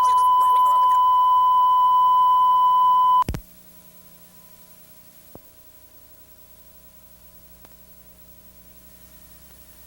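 A steady 1 kHz line-up test tone at the head of a videotape stops abruptly about three seconds in with a click. Faint tape hiss and a low hum remain, with a couple of tiny ticks.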